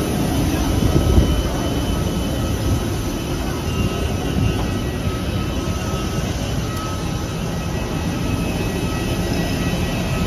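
Steady, loud jet aircraft engine noise on an airport apron: a continuous rush with faint high whining tones over it.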